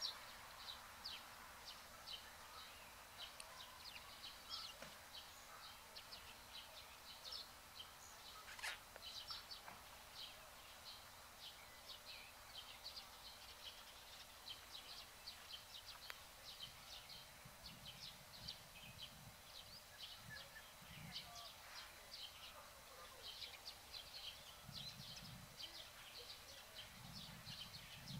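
Faint birds chirping outdoors: many short, high chirps that come and go, with faint low sounds in the last third.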